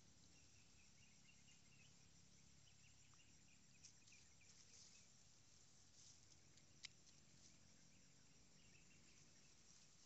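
Near silence: faint outdoor ambience with insects chirping softly, and a couple of faint single clicks.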